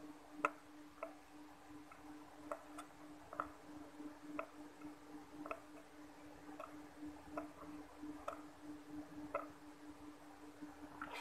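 Faint, light ticks at slightly uneven spacing, roughly once a second, over a steady low hum, while solder is melted with a soldering iron onto an LED bulb's circuit board to bridge a dead LED.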